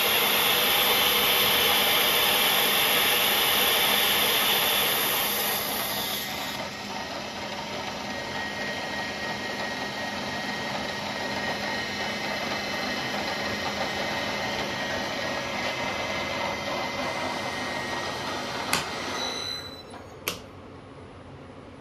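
CNC milling machine running with flood coolant spraying while an indexable carbide countersink cuts holes in a plate: a steady spindle whine under a loud hiss that eases after about six seconds. Near the end come two sharp clicks and the machine falls quiet.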